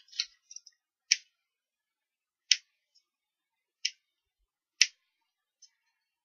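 Small craft scissors snipping the ends of white baker's twine: about five short, sharp snips spaced a second or so apart, with a few fainter clicks between them.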